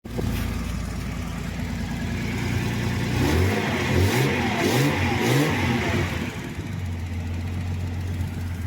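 Datsun 280ZX's 2.8-litre L28 straight-six running at a fast idle, then blipped four times in quick succession about three seconds in, each rev rising and falling, before settling back to a steady idle. It runs without a knock after a rod-knock repair.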